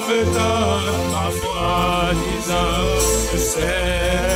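Gospel song accompaniment: acoustic guitar over steady sustained bass notes, with a wavering melody line carrying on between sung lines.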